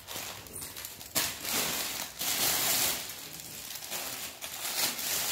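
Plastic packaging around a saree crinkling and rustling as it is handled, in irregular rushes.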